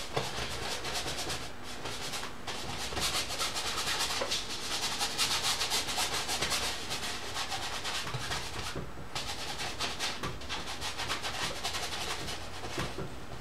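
Paintbrush scrubbing oil paint on a stretched canvas in quick, repeated back-and-forth strokes, blending the colours soft, with a brief pause about nine seconds in.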